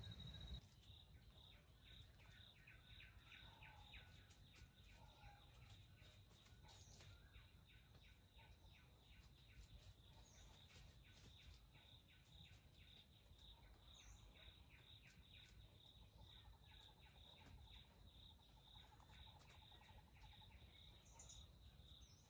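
Near silence with faint insects chirping: a steady high-pitched trill of quick, even pulses, with a few faint bird chirps now and then.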